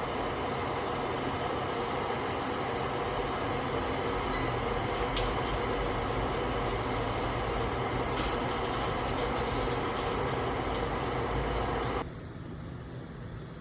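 A steady mechanical running noise that drops suddenly to a quieter hum about twelve seconds in.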